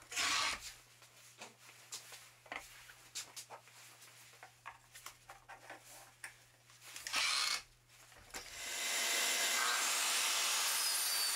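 Light clicks and knocks as a sliding compound miter saw is handled and set, with brief rushes of noise at the start and about seven seconds in. About eight and a half seconds in, a motor spins up and runs steadily with a rushing, airy sound.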